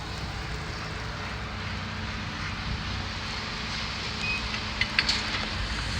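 A vehicle engine running steadily with a low hum, over a broad outdoor hiss, with a couple of sharp clicks about five seconds in.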